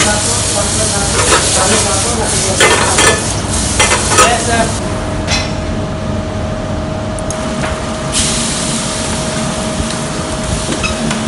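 Stir-frying in a wok and pan: food sizzling, with a metal ladle clattering and scraping against the pan. About halfway through, the sizzle drops away to a quieter stretch with a steady hum. A few seconds later the sizzle and stirring return as fried rice is tossed in the wok.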